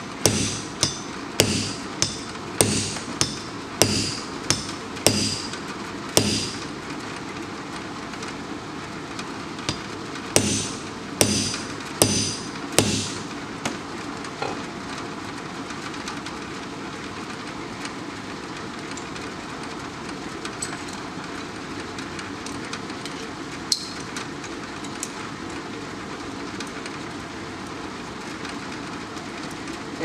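Hammer blows driving a Timken bearing race down into a front hub: about ten steady taps with a metallic ring in the first six seconds, then four more between about ten and thirteen seconds in. A fan running on high hisses steadily underneath.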